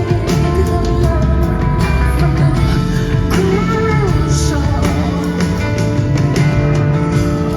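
A live band playing a song in a concert hall, with regular drum strikes and sustained bass and chords, and a singing voice over them.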